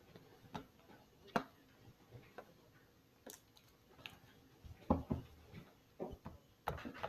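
Slime being squeezed and poked by hand, giving irregular soft clicks and pops, with a small cluster of them about five seconds in and more near the end.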